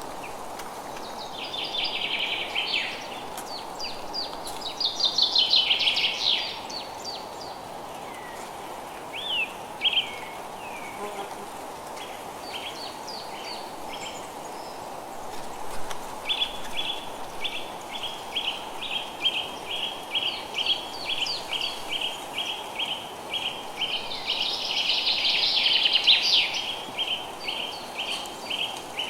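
Birds chirping and singing over a steady background hiss, with two louder flurries of song, about 5 s in and again near the end. From the middle onward one bird repeats a short note evenly, about two a second.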